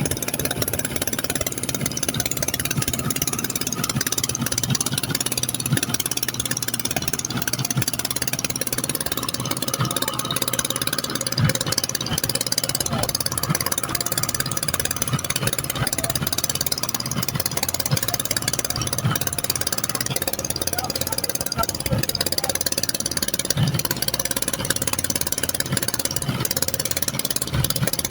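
Boat engine running steadily over a constant hiss of water and wind, with occasional low thumps.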